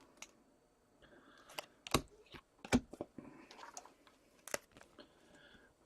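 Trading cards being handled: a few light clicks and taps with soft rustling, the strongest clicks about two seconds in and again near the middle.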